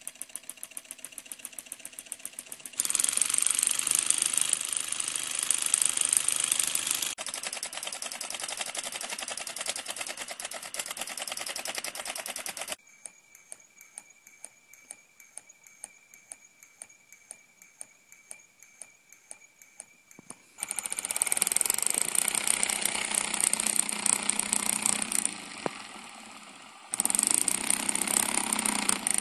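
Homemade solenoid engine running: its plunger snapping in and out very rapidly, making a fast mechanical clatter of clicks as the flywheel spins. The speed and loudness change abruptly several times, with a quieter stretch near the middle that carries a faint steady whine.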